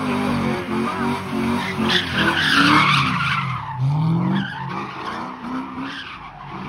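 Car engine revving up and down while the tyres screech, the car doing burnouts and donuts in its own tyre smoke. The screech is loudest about two to three seconds in.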